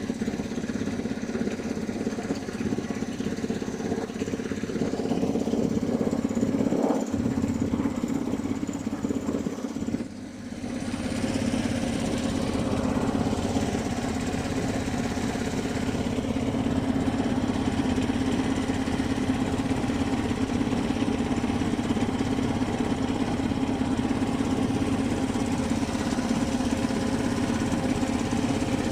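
A small fishing boat's engine running steadily under way; it eases off briefly about ten seconds in, then picks up again.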